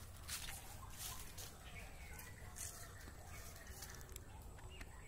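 Footsteps crunching on dry fallen leaves, a few crackles spaced irregularly in the first half, with faint bird calls in the background.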